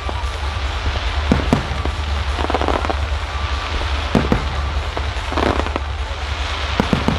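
Aerial fireworks shells bursting: sharp bangs about a second and a half, four, and seven seconds in, with stretches of crackling stars in between, over a steady low rumble.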